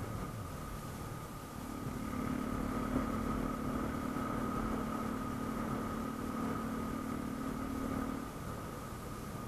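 A motor vehicle engine running at a steady speed. Its hum comes in about a second and a half in and drops away about a second before the end, over a steady high-pitched tone.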